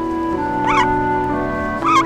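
Female mallard ducks giving two short quacks, about a second apart, the second one louder near the end, over background music with steady held notes.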